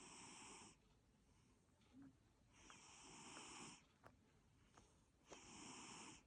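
Abyssinian cat snoring softly, with a breathy snore about every three seconds, three in all.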